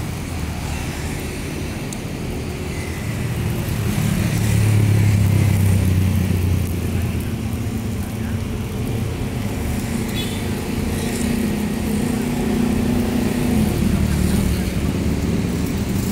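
Road traffic passing close by: vehicle engines swell and fade, loudest about four to six seconds in and again near the end.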